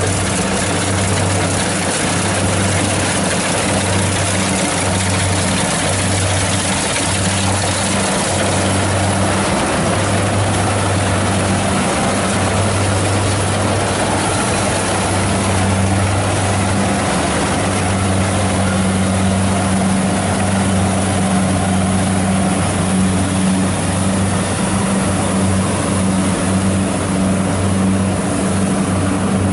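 Kubota rice combine harvester's diesel engine running steadily with a deep drone while the machine cuts and threshes rice.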